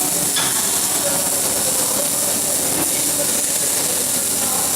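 Welding arc hissing steadily, without a break.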